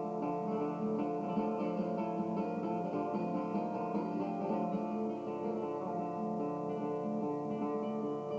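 Acoustic guitar played live, a continuous run of quickly plucked notes ringing over one another.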